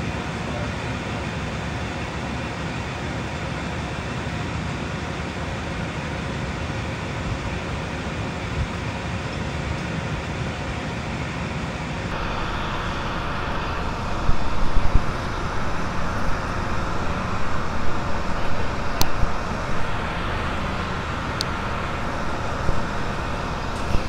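Tractor engine idling steadily, with louder irregular knocks and a couple of sharp clicks in the second half as the right lift arm's leveling adjuster is worked.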